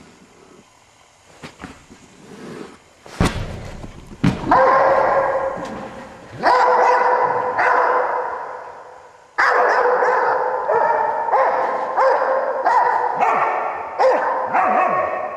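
Australian Shepherd barking in long runs of rapid, high-pitched barks during excited play, with a sharp thump about three seconds in.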